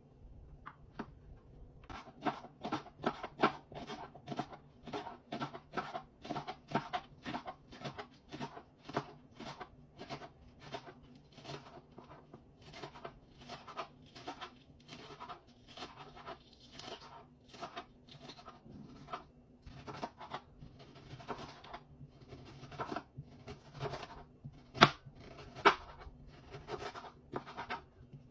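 Kitchen knife chopping green onions on a cutting board, steady strokes about two a second, starting about two seconds in. Near the end it moves on to slicing an onion, with two sharper knocks against the board.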